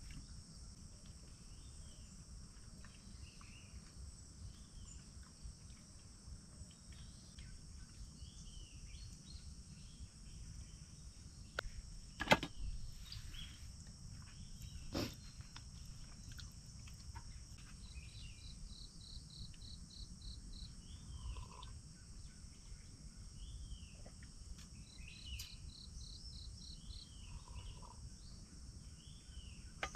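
Forest ambience: a steady high insect drone with scattered bird chirps and two runs of rapid repeated calls. A sharp knock about twelve seconds in, the loudest sound, with a smaller one about three seconds later.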